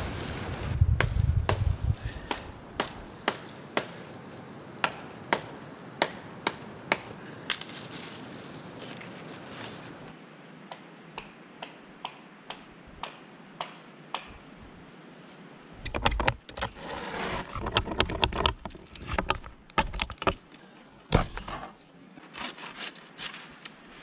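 Dry branches and sticks snapping in a run of sharp separate cracks, about two a second. About two-thirds of the way through comes a denser, louder stretch of cracking and rustling.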